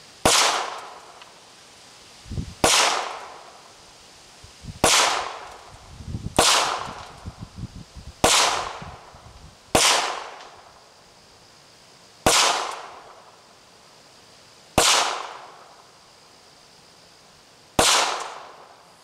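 Nine shots from a Ruger Mark III Hunter .22 LR pistol, fired one at a time about one and a half to three seconds apart. Each is a sharp crack with a short fading echo.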